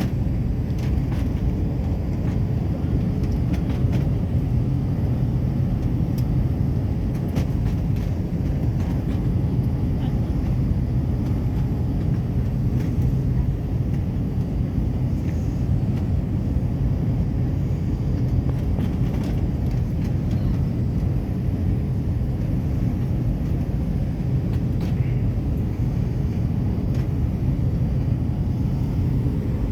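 Steady low roar of an airliner cabin in flight, from the jet engines and the airflow along the fuselage, with a faint steady hum under it.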